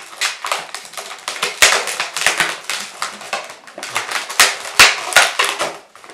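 Latex modelling balloons rubbing and squeaking against each other as balloon wheels are twisted onto a balloon car, a fast, irregular run of sharp squeaks and rubs.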